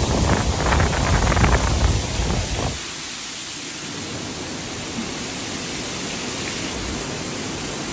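Typhoon wind and heavy rain: a steady loud hiss. For the first few seconds gusts also buffet the microphone with a low rumble, which drops away about three seconds in, leaving the even hiss.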